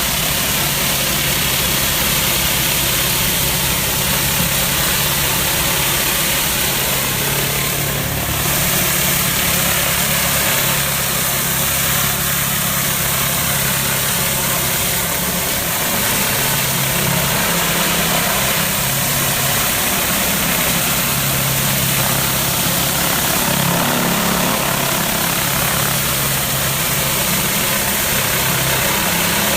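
Pressure washer engine running steadily, with the hiss of the high-pressure water spray on paving.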